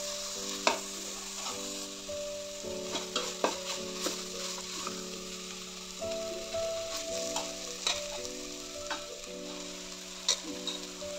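Onion and spice mixture sizzling in a stainless steel pot while a steel ladle stirs and scrapes it, with a scattering of sharp clinks of the ladle against the pot.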